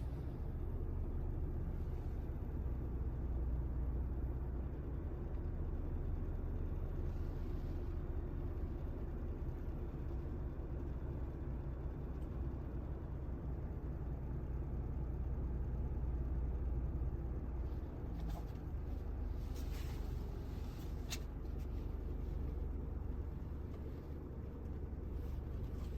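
Steady low rumble of a vehicle's cabin while moving, with a few light clicks a little past the middle.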